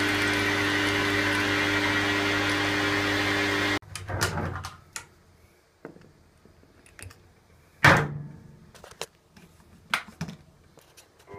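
Metal lathe running as a twist drill in the tailstock chuck bores into a spinning aluminium bar; the steady machine noise cuts off abruptly about four seconds in. After that come scattered clicks and knocks of a 6 mm x 1 mm metric thread being tapped, with one loud knock about eight seconds in.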